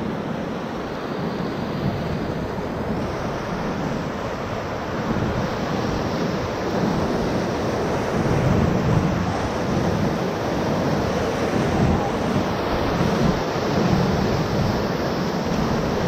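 Whitewater rapids rushing around a paddle raft, a steady churning water noise that grows louder about a third of the way in as the raft runs into the rapid.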